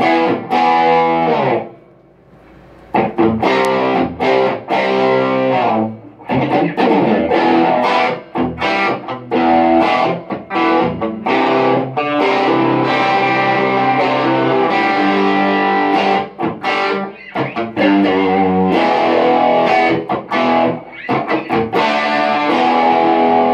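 Electric guitar played through a pedalboard of effects pedals into amplifiers, with sustained notes and chords. The playing stops briefly about two seconds in, then carries on.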